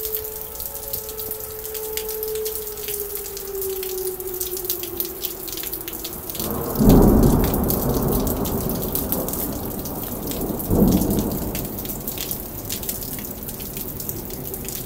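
Whelen outdoor tornado warning siren winding down, its single tone sliding slowly lower and fading out over the first six seconds, under steady rain. Then two rolls of thunder, about seven and eleven seconds in, the first the louder, each fading over a few seconds.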